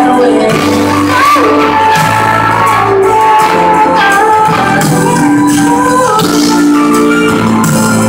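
Live band playing loudly: electric guitars, keyboard and drums holding sustained chords over a steady beat.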